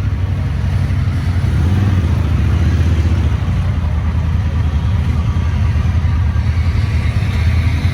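Dune buggy's engine running steadily at low speed as it is driven off-road, a constant low hum with no breaks.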